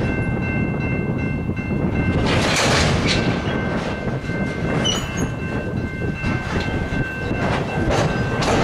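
Ballast hopper cars of a freight train rolling past: a steady rumble of steel wheels on the rails, with irregular clacks and a thin steady high tone over the first couple of seconds.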